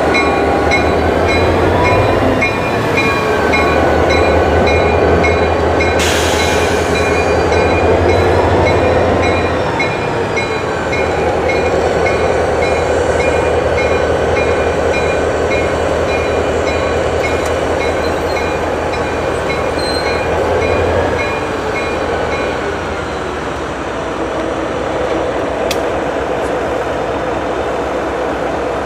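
EMD GP38-2 diesel locomotive, a two-stroke V16, passing close by with a low engine drone, followed from about two-thirds of the way through by passenger cars rolling past on the rails. A grade-crossing bell rings rapidly throughout and stops at about the same time as the engine.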